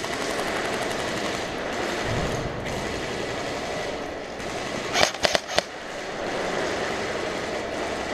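Airsoft guns firing, echoing in a large empty warehouse: a continuous rattle, with about four sharp, loud shots in quick succession about five seconds in.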